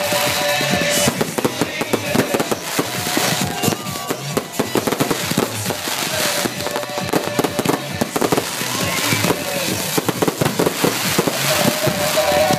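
Fireworks and firecrackers going off in a dense run of sharp bangs and crackles, many a second, without a break.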